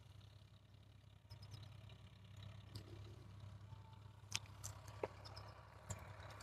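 Very faint, steady running of a Sonalika DI 35 tractor's diesel engine as it pulls a reversible mouldboard plough through soil, with a few light clicks about four and five seconds in; otherwise near silence.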